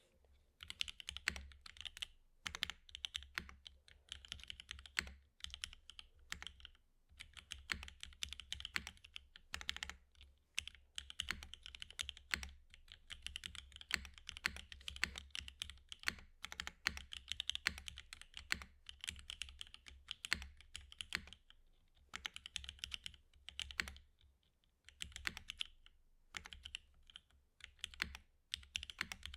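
Typing on a Frog mini mechanical keyboard with Gateron Snow Rabbit linear switches on an aluminum plate. Rapid, continuous keystroke clacks begin just under a second in and run on with a few brief pauses.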